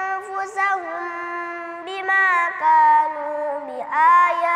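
An eight-year-old boy reciting the Quran in Arabic in a melodic, chanted style (tilawah), drawing out long held notes with wavering ornamental turns between them.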